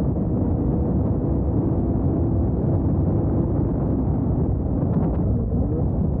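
Motorcycle engine running under way at road speed, heard from the bike itself, mixed with wind rushing over the microphone. The engine's pitch shifts a little near the end.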